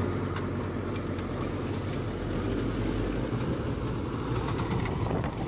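Farm tractor engine running steadily under load as it drives a rotary tiller and a three-row ridge-forming plastic mulch layer through the soil: a constant low engine hum with a dense rumble and scattered small clicks.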